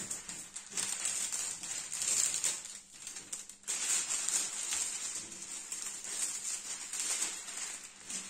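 Rustling and crinkling of a large diamond-painting canvas and its sheets being handled and smoothed out. It goes on continuously, with a brief lull a third of the way through.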